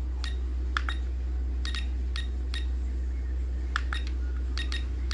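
Sharp, short clicks at irregular intervals, often in pairs, about ten in five seconds, over a steady low hum: button presses on a ToolkitRC M6D charger while stepping through its menus.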